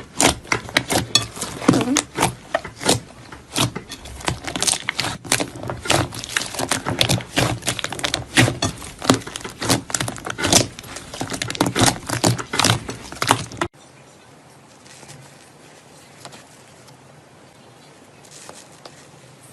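Slime being squeezed and worked by hand, a dense run of sticky clicks and pops. It stops abruptly about 14 seconds in, leaving only a few faint soft sounds.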